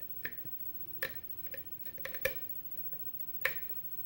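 Lock pick clicking inside the keyway of a six-pin Sargent pin-tumbler lock during single-pin picking: a handful of sharp, irregularly spaced clicks as the pick works and springs off the pins, giving feedback from pin 1.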